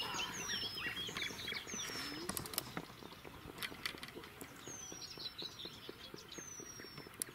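Several songbirds calling together in a dawn chorus: short falling whistles repeated every second or so, mixed with many quick chirps. A few sharp clicks stand out between two and four seconds in.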